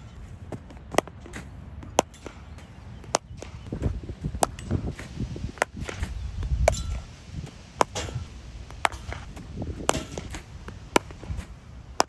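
Cricket bat and ball in net batting practice: a series of sharp, clean knocks, roughly one a second, over a low uneven rumble.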